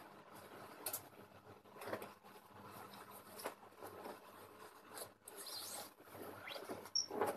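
Faint rustling, rubbing and scraping of someone handling things close to the phone, with scattered light clicks and a knock near the end.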